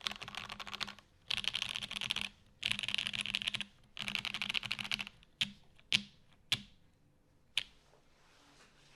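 Custom mechanical keyboard (Nunu case in red polycarbonate, UHMWPE plate, OP Black switches lubed with 205g0, GMK keycaps) being typed on: four runs of fast typing, each about a second long, then four single key presses spaced apart.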